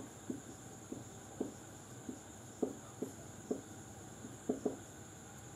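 Writing by hand: about a dozen faint, short, irregular strokes and taps of a pen or marker as a heading is written out.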